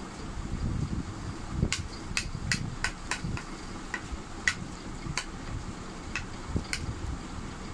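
A plastic spoon clicks and scrapes against a plate while scooping fried rice: about a dozen sharp, irregular clicks starting a couple of seconds in and stopping near the end. A low, uneven rumble of chewing runs beneath.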